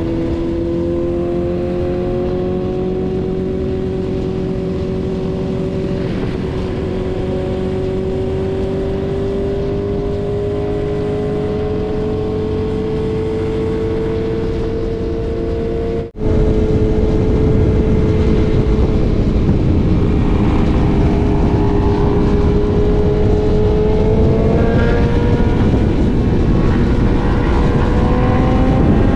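BMW S1000RR's inline-four engine pulling in one gear as the bike speeds up, its pitch rising slowly, with wind rush on the microphone. About halfway through the sound drops out for an instant and comes back louder with more wind, and the engine pitch climbs again in the last few seconds.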